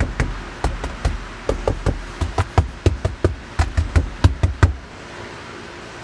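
A knock test on a car body panel: knuckles rap it about twenty times in quick, uneven runs, checking how much the panel rings with sound deadener applied. The knocking stops a little before the end, leaving a steady low background noise.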